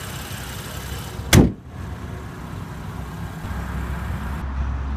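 BMW 435i's 3.0-litre turbocharged inline-six idling steadily, with the hood slammed shut once, a loud bang, about a second and a half in.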